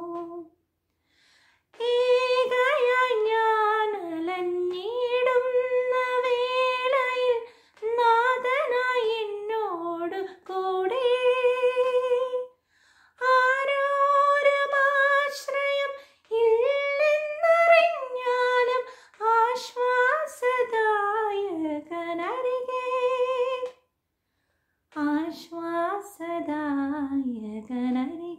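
A woman singing solo and unaccompanied, carrying the melody without words. She sings in phrases of two to four seconds with long held notes and ornamented glides, broken by short pauses for breath.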